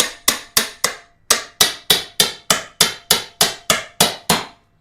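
A quick, even run of about fifteen sharp knocks, roughly three a second, with a short break about a second in.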